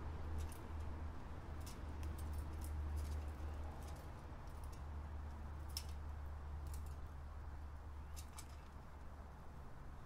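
About a dozen scattered sharp clicks and taps, some in quick pairs, from birds pecking seed and shifting on a metal tube feeder, with a common grackle feeding at it. Under them runs a steady low rumble.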